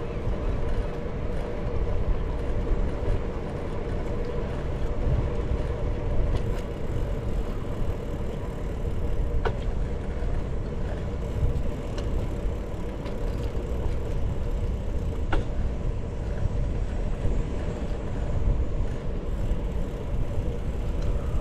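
Steady low rumble of riding a bicycle, wind on the microphone mixed with rolling noise, with a few light clicks.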